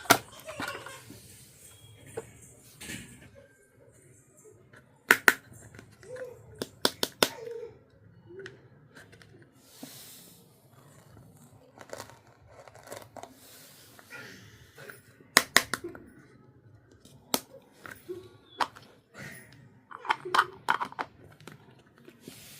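Miniature toy pieces and their packaging being handled: sharp clicks and taps of small hard parts in quick clusters of two to four, with soft rustling in between.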